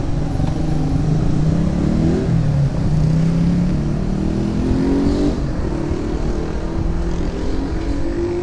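A car engine running close by, its pitch rising twice as it is revved.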